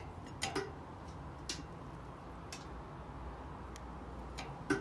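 A few scattered light clicks and knocks from handling the beer-keg smoker and its metal pan of cheese, over a steady low background hum. The sharpest knock comes near the end.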